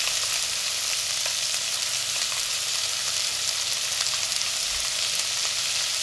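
Chopped bell peppers and garlic sizzling steadily in a little olive oil in a pot, with faint scattered crackles.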